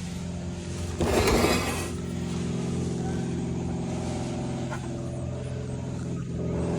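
A steady, even mechanical hum runs throughout, with a short burst of noise about a second in that lasts about half a second.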